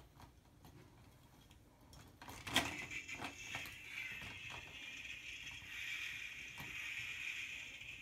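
Toy monster trucks being handled at the top of a toy ramp set: a sharp plastic click and a few smaller clatters as they are set in place. Then a steady high hiss-like whir runs on.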